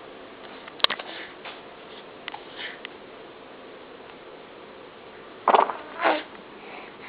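A pet cat making two short, loud, scratchy noises about half a second apart, about five and a half seconds in, after a few faint clicks; a faint meow-like call begins near the end.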